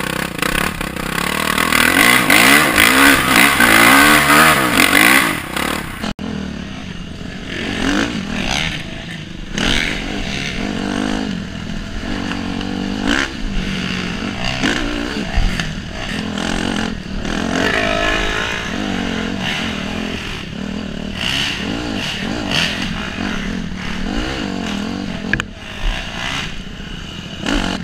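Dirt bike engine heard close from the rider's helmet, revving up and down as the bike is ridden hard along a rough trail, with knocks and rattles over the bumps. The sound changes abruptly about six seconds in, where the footage cuts to another rider's bike.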